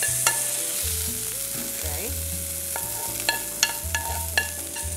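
Metal spoon scraping and tapping against a hot non-stick frying pan as freshly seared whitebait are scooped out, with a light sizzle of hot oil. Sharp clicks of the spoon on the pan come several times, most in the second half.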